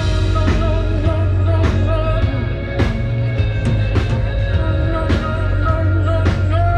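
Amplified live rock band playing: drums on a steady beat of about two a second, guitars and heavy bass, and a singer holding long notes with a wavering vibrato.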